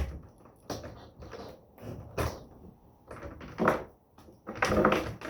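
Scattered knocks, clicks and rustles of handling as the radio's bundled power cord is unwound and moved about.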